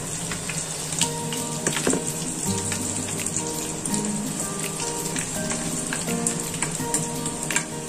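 Hot oil sizzling in a steel pan as mustard seeds, cumin and dried red chillies fry for a tempering, with many small crackling pops.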